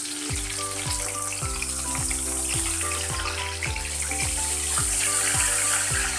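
A fish sizzling in hot oil in a wok, the hiss starting suddenly as it goes in and keeping up steadily, over background music.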